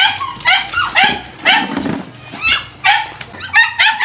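Dog yipping over and over, short high yelps two or three a second.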